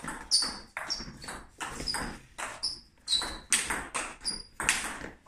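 Table tennis rally: the celluloid ball cracks off the rubber bats and bounces on the table in a quick run of sharp clicks with short high pings, about a dozen in five seconds.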